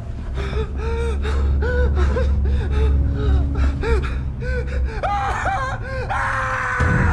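A man gasping in a string of short breathy cries, each rising and falling in pitch, a few a second, over a low rumbling drone for most of the stretch; near the end a louder, held higher sound joins.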